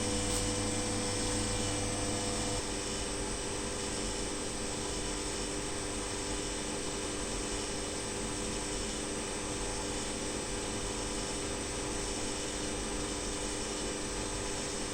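Steady hum and hiss of running equipment, with several fixed tones; about two and a half seconds in, a low hum and some of the tones cut off suddenly and the sound gets slightly quieter.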